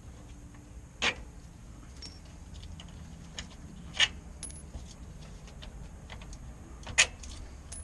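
Sharp metallic clinks, three of them about three seconds apart with faint ticks between, from hand tools working on the bolts of an RV waste-tank gate valve.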